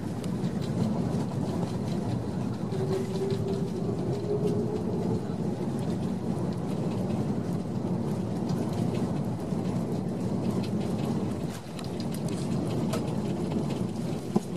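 Steady rumbling roar inside the cabin of an Airbus A330 on its landing roll: engine noise and wheel rumble on the runway, dipping briefly about eleven seconds in, with a sharp click near the end.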